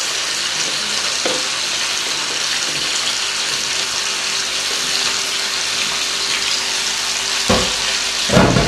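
Chicken pieces frying in hot oil in a pan: a steady sizzle, with two knocks near the end.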